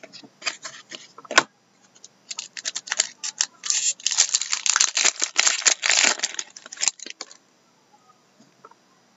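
Trading cards being handled and flipped through by hand close to the microphone: a run of crisp clicks and rustles, with a sharp snap about a second and a half in, densest from about four to seven seconds in.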